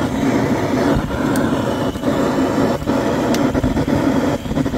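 Handheld butane gas torch on a canister, its flame blowing into firewood to light it: a loud, steady rushing, with a few brief dips.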